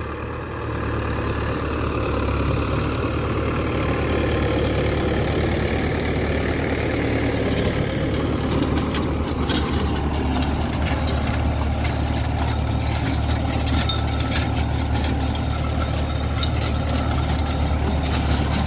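Mahindra tractor's diesel engine running steadily as it pulls a seed drill through tilled soil. From about halfway, quick clicks and rattles come from the drill's metal frame and tines.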